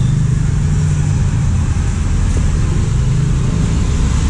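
Motorcycle engine idling steadily at close range.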